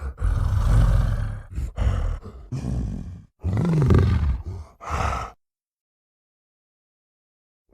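Gorilla roar sound effect: a long, low, rough roar, then a string of shorter grunting roars over the next few seconds, with silence for the last two seconds.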